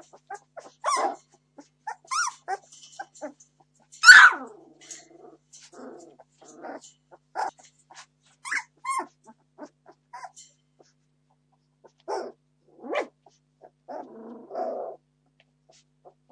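Litter of 17-day-old Entlebucher Mountain Dog puppies crying in many short calls, one much louder than the rest about four seconds in: hungry puppies demanding food.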